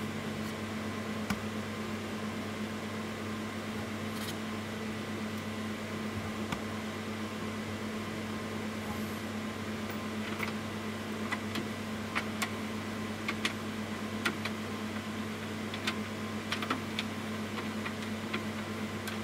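Light metallic clicks and ticks, scattered through the second half, from a server's book-lift mechanism being worked by turning its lift screw, over a steady low hum.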